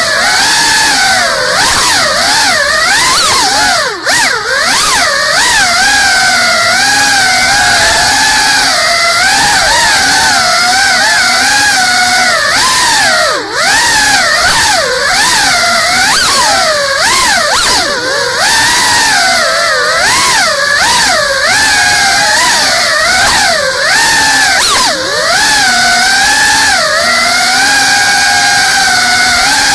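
GEPRC CineLog 35 ducted FPV quadcopter's brushless motors and propellers whining in fast flight, the pitch swooping up and down continually with the throttle. The sound dips briefly twice, about four and thirteen seconds in.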